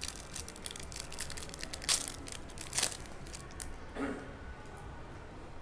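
Foil wrapper of a WandaVision trading card pack crinkling as it is torn open by hand, with two sharp rips about two seconds in and a second later, then a softer rustle as the stack of cards is drawn out of the pack.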